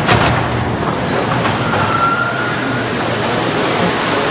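Steady rushing background noise of a busy commercial kitchen, with equipment and ventilation running. A faint brief whine comes about two seconds in.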